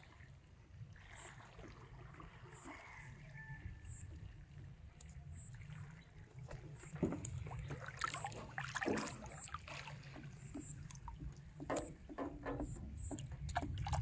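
Small knocks and rustling from handling a bamboo fishing rod in a small metal boat, with light water splashes as the baited float is cast, over a steady low rumble. The knocks come mostly in the second half.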